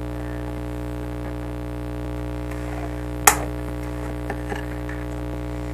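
Steady electrical mains hum, with one sharp snip of scissors about three seconds in as they cut a tie holding the doll into its cardboard packaging, and a couple of faint ticks after it.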